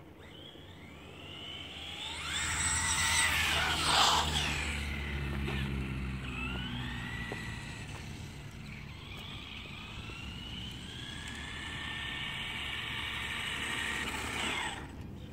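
Radio-controlled toy car's motor whining, its pitch rising and falling as it speeds up and slows, with a rumble of the wheels beneath. It is loudest about four seconds in, then runs on more evenly.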